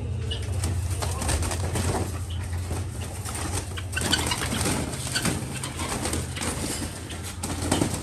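Caged birds flapping their wings and scrabbling against the wire of their cage while a hand reaches in to catch them, the cage rattling with irregular clatters. A steady low hum runs underneath.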